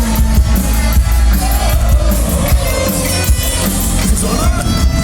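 Live rock band playing loudly, with a sung vocal over heavy bass and a steady drum beat, and a crowd audible underneath.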